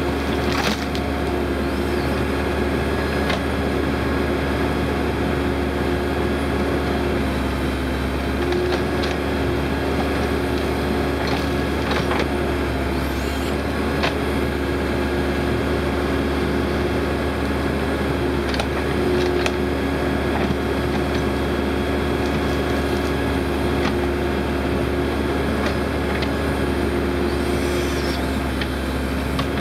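Case 580L Turbo backhoe's turbocharged diesel engine running steadily under load while the hoe works, with a steady hum and a higher tone that drops out now and then. Occasional short knocks come from the bucket and dirt.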